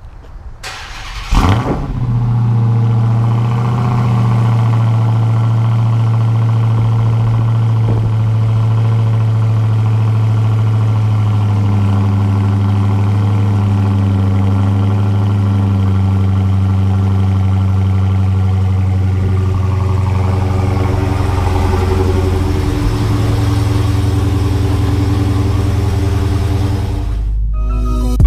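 Dodge Charger SRT Hellcat's supercharged 6.2-litre HEMI V8 starting up about a second in, with a short rev as it catches, then settling into a steady idle to warm the oil before an oil change.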